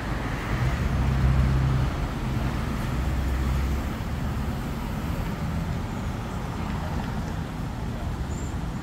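Street traffic noise with a motor vehicle's low engine hum, which swells about a second in and eases off after about four seconds.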